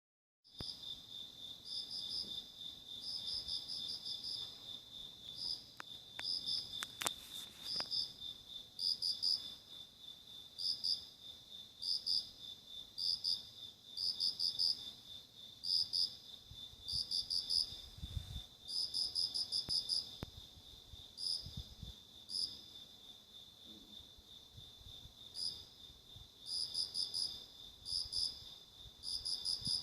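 Crickets at night: one steady, unbroken high trill, over which another cricket chirps in short groups of one to six quick pulses with irregular gaps.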